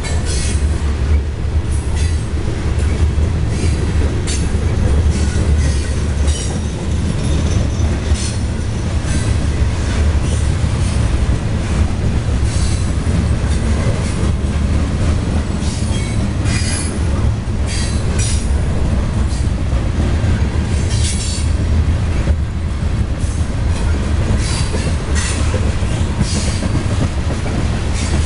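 Freight train of covered hopper cars rolling past: a steady low rumble of steel wheels on rail, with repeated clicks as the wheels cross rail joints and short high-pitched wheel squeals now and then.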